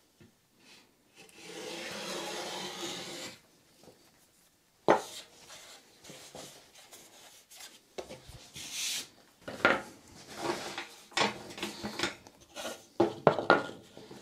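A block plane shaving along the edge of a plywood board in one long stroke of about two seconds, then a sharp knock. Later come a short scrape and a run of wooden knocks and clunks as the boards are handled on the bench.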